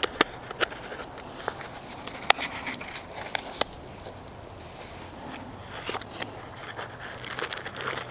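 A small cardboard product box being handled and opened: a scatter of sharp clicks and taps, then scraping and rustling of cardboard near the end.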